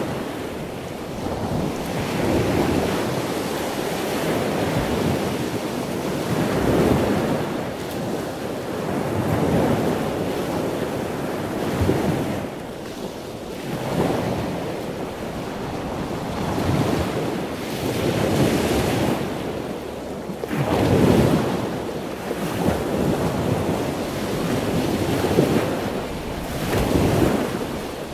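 Wind rushing over the microphone in uneven gusts, a noisy rumble that swells and fades every few seconds.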